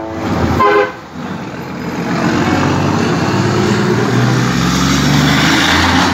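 A truck horn sounds and cuts off under a second in. Then a heavy diesel truck engine runs loud, its low note shifting in pitch.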